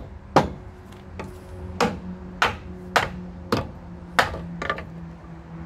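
A hand hammer striking the tram's metal fittings: about six sharp blows, most under a second apart, then a lighter double tap near the end.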